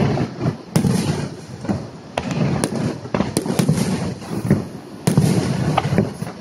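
Fireworks display: aerial shells bursting with sharp bangs every second or so, over a continuous crackle and rumble from the bursts.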